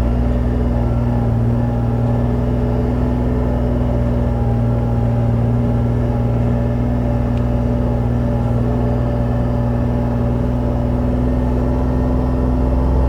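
Vehicle engine running at a steady speed, a loud even low hum that holds the same pitch throughout.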